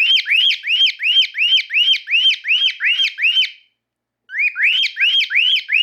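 Cockatiel whistling a string of identical clear, arching notes, about three a second. It breaks off briefly past the middle, then starts the same run again.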